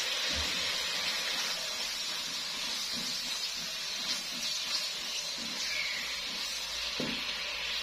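Boneless chicken pieces sizzling in oil in a non-stick wok, with soy sauce just added, as a steady hiss. They are stirred with a silicone spatula.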